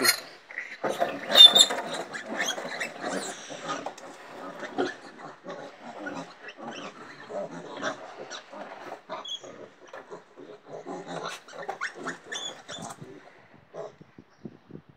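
Ten-day-old piglets squealing and grunting, upset from being handled for injections: a loud squeal about a second in, then a run of short grunts that thin out near the end.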